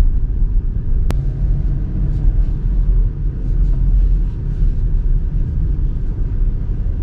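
Steady low rumble of engine and road noise heard from inside a car driving slowly, with a single light click about a second in.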